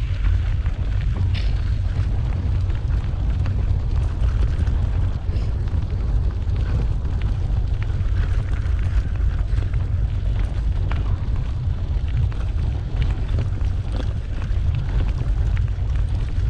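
Steady heavy low rumble of wind buffeting the microphone, over the crunch of a dog-drawn rig rolling fast on a gravel track, with faint scattered clicks of grit.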